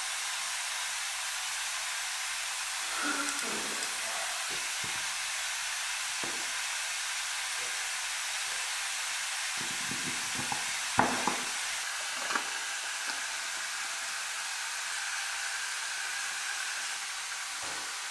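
Steady hiss with light clicks and rustling as a paper oil filter cartridge is handled and pressed into its plastic housing cap, with one sharp snap a little past the middle.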